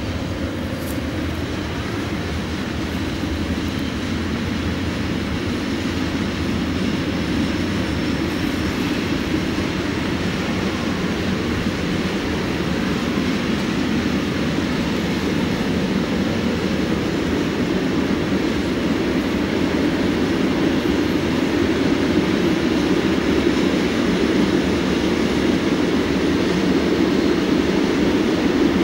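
Freight train of tank wagons rolling past: a steady rumble of steel wheels on the rails, slowly growing louder.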